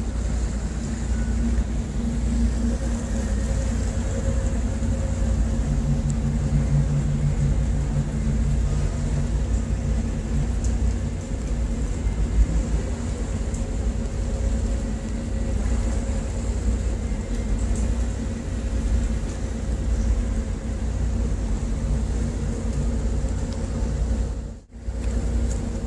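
Tugboat's diesel engines running steadily, a low drone with a faint hum on top, heard on board. The sound drops out for a moment near the end.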